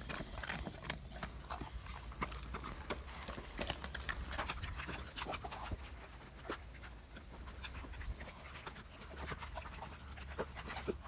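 Great Dane eating raw chicken from a stainless steel bowl: wet chewing and chomping with many short, irregular clicks and smacks.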